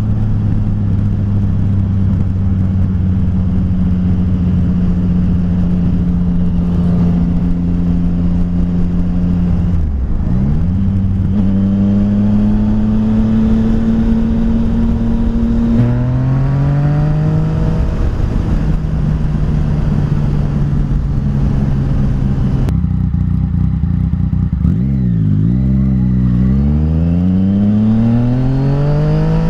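Yamaha FZ-09's inline three-cylinder engine under way, holding a steady speed, then easing off about ten seconds in and pulling again. In the last third the pitch drops and climbs several times in quick succession as it shifts up and accelerates, over a steady rush of wind and road noise.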